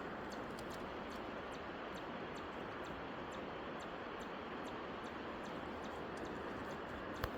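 Quiet outdoor ambience: a steady faint hiss with light, evenly spaced high ticking, about three a second, and one sharper click near the end.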